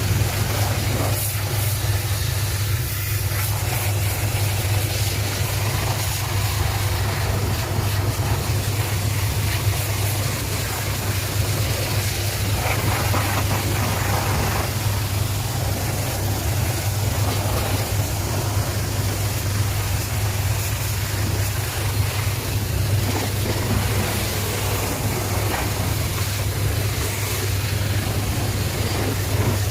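Hot pressure washer (steam cleaner) running with a steady low drone, its jet hissing as it sprays down a car's engine bay.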